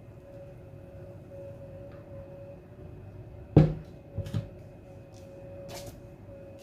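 Kitchenware knocking while onion pulp is strained: one sharp knock with a short ring about three and a half seconds in, then two lighter knocks and a brief scrape, over a steady faint hum.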